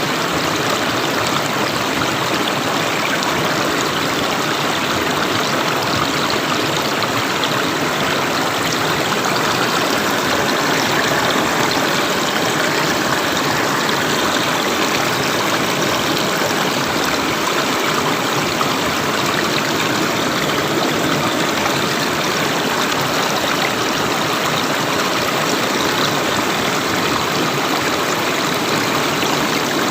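River water flowing steadily, a continuous even rush.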